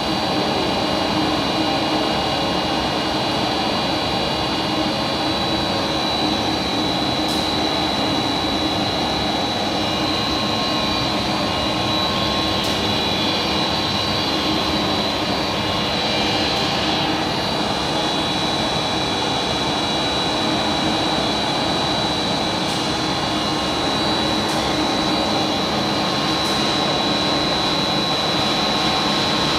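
45 mm LD blown film extrusion plant running: a steady whir of machinery with a constant high-pitched whine over it, and a few faint ticks.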